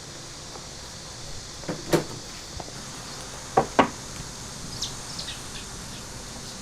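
Steady sizzling from frying on a hot griddle, with sharp knocks of cooking utensils: two close together about two seconds in, and two louder ones a little after halfway.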